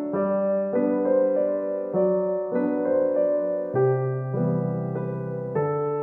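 Background music: a piano or electric keyboard playing held chords that change about once a second.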